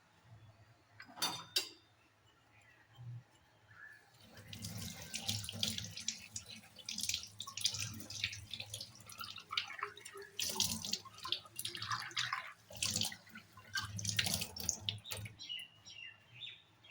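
A couple of sharp clinks about a second in, then water from a tap running and splashing unevenly in a kitchen sink for about ten seconds.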